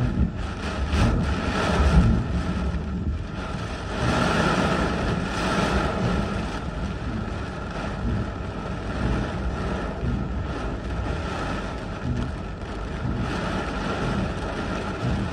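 Gusting wind and heavy rain of a severe thunderstorm, heard from inside a car with rain beating on the windshield. The wind surges hardest about two seconds in and again around four to six seconds.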